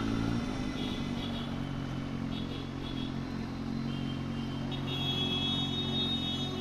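Superbike engine running low and steady at slow riding speed. High, steady tones join about four and a half seconds in.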